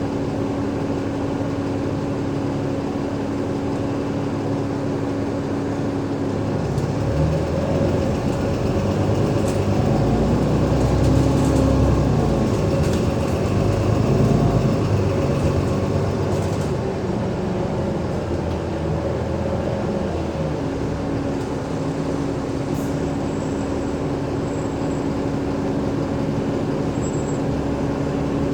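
Cummins ISL8.9 diesel engine of an Alexander Dennis Enviro500 MMC bus running with a steady hum. About a quarter of the way in it grows louder and its note rises and falls for several seconds, then it settles back to the steady hum about three-quarters through.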